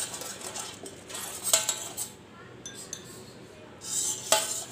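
Metal spoon scraping and clinking on a stainless steel plate while spreading oil over it, with two sharper ringing clinks, about a second and a half in and near the end.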